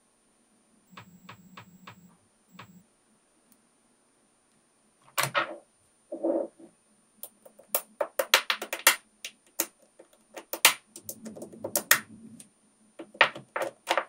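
Small magnetic balls clicking as they snap onto one another, in scattered single clicks and quick runs of clicks, with softer rattles of balls shifting in between.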